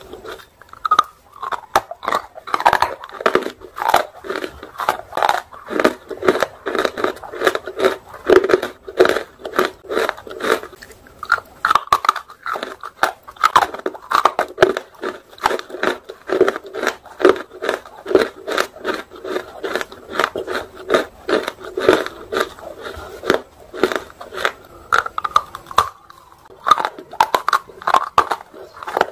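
Dry, crisp crunching and chewing of half-roasted and fully roasted nakumat, a baked edible clay, bitten in one go close to the microphone. The crunches come several times a second, with one short pause near the end.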